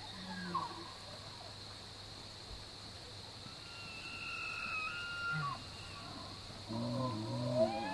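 Bull elk bugling: a high, whistle-like note held for about two seconds in the middle, then dropping away; near the end a second bugle begins low and loud and climbs steeply in pitch.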